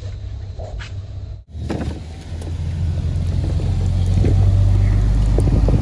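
Pickup truck driving on a snow-covered road, heard from inside the cab: a low engine and tyre rumble that grows louder over the second half as the truck gets moving.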